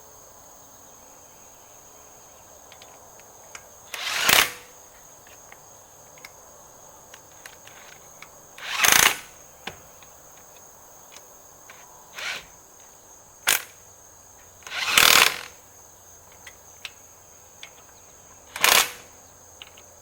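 Impact wrench on its lowest torque setting running lug nuts onto a steel wheel in short bursts every few seconds, over a steady high insect trill.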